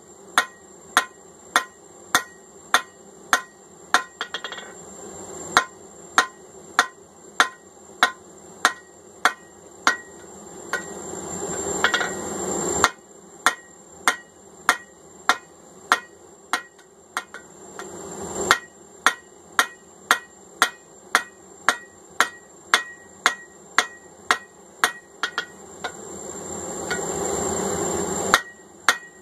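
Hand hammer striking hot steel on an anvil in a steady rhythm, about two ringing blows a second, while forging a hammer eye punch. Twice a rushing noise swells up behind the blows and cuts off suddenly.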